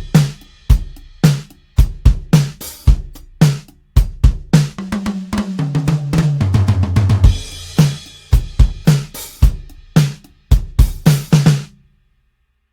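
Sampled acoustic drum kit from Toontrack EZdrummer 3 playing a groove of kick, snare, hi-hat and cymbal hits. In the middle comes a fast tom fill that falls in pitch, and the pattern stops near the end.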